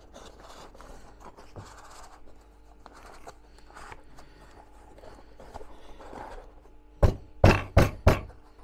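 Scraping and rustling of cardboard strips and a wooden frame being handled while a cat scratching board is put together, then four sharp knocks in quick succession near the end.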